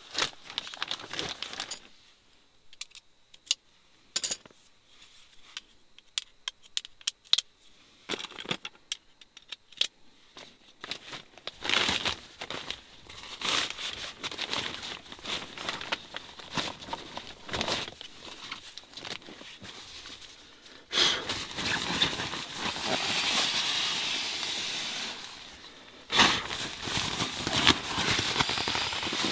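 Camping gear being handled: scattered sharp clicks while a camp cot's frame is fitted together, then dense crinkling and rustling from a foil-faced reflective pad and nylon fabric. A few seconds of steadier rushing rustle come past the middle.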